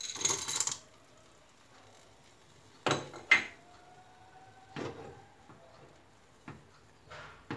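A spatula stirring chocolate mirror glaze in a small saucepan, scraping and knocking against the pan. There is a scraping rustle at the start, two sharp clinks about three seconds in, and a few softer knocks after.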